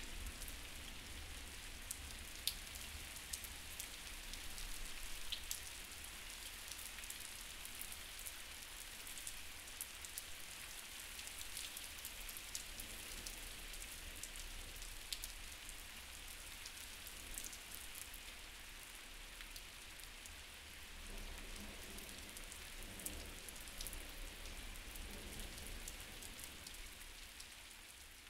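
Steady rain falling: an even hiss scattered with small drop taps. Faint low tones come in about three-quarters of the way through.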